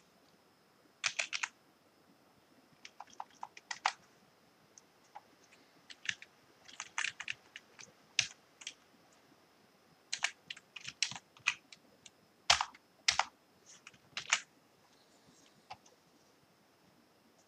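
Typing on a computer keyboard: irregular bursts of keystrokes that stop about two seconds before the end.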